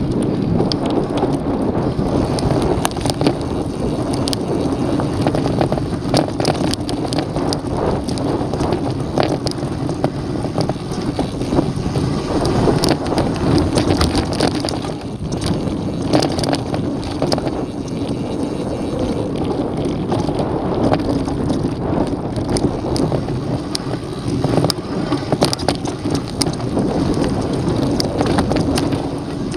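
Mountain bike rolling over a dirt and loose-rock trail: tyres crunching on gravel and stones, with frequent sharp rattles and knocks from the bike jolting over bumps, under a steady rush of wind on the camera microphone.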